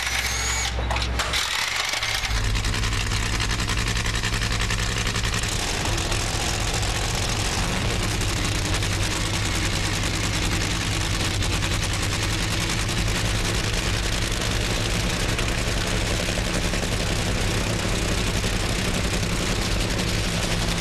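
Drag-race car engine running at a steady idle, loud, with a constant low rumble and a brief break about two seconds in.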